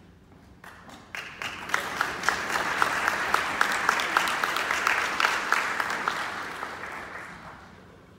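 Audience applauding: the clapping swells about a second in and dies away near the end, with one clapper close by clapping about twice a second.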